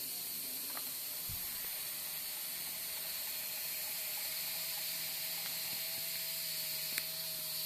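Steady hiss of compressed air escaping from the air-bearing machine's air supply, with a faint steady whine under it. A single dull thump comes about a second in and a sharp click near the end.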